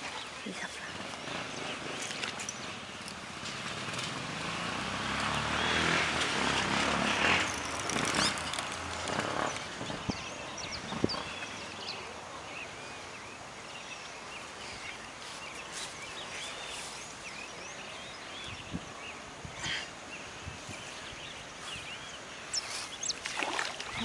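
Outdoor ambience with small chirps, likely birds. A motor vehicle passes: it swells louder for a few seconds about four seconds in, then fades.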